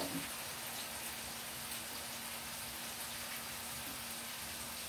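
Chips frying in a pan on a gas stove: a steady sizzle, with a low hum underneath.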